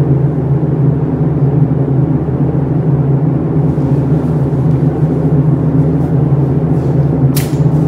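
Steady low rumble of a paint spray booth's air system, with a short burst of hiss from a spray gun near the end.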